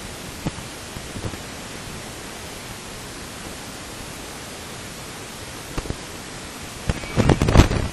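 Steady hiss of cabin noise in a Cessna 172 rolling out along the runway after landing, with the engine throttled back. A short cluster of loud knocks and rattles comes about seven seconds in.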